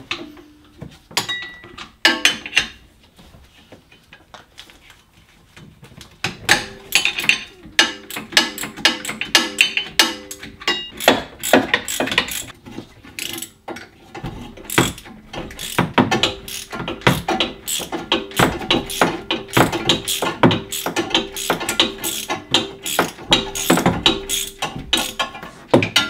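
Hand ratchet wrench clicking in quick runs as the mounting bolts of a golf cart's starter generator are turned out, with occasional knocks of tool on metal. The first few seconds are sparser, and the steady ratcheting starts about six seconds in.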